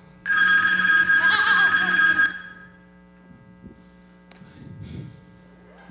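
A telephone ringing once, a bright electronic ring of about two seconds that stops abruptly.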